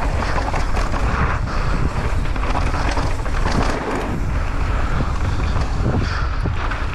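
Wind buffeting the microphone of a mountain biker's camera while riding down a trail, with scattered knocks and rattles from the bike.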